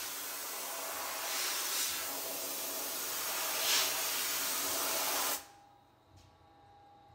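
A steady hiss that swells slightly a couple of times, then cuts off suddenly about five seconds in, leaving a faint background hum.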